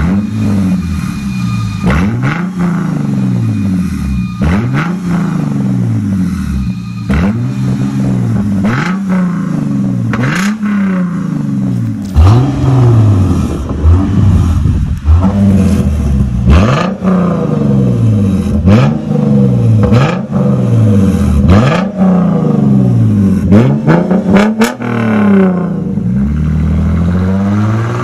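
Lexus GS 350's 3.5-litre V6 revved again and again through a reworked exhaust with the resonators removed and the vacuum valve open, each rev rising and falling in pitch about every one and a half seconds.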